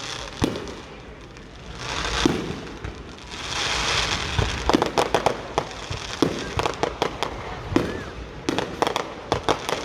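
Fireworks going off: a few single bangs and hissing crackle swells, then from about halfway a fast run of sharp pops and crackles.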